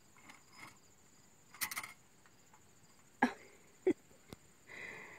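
Steady high-pitched insect trilling with a fine, even pulse, broken by a few short clicks and knocks, the loudest about three and four seconds in.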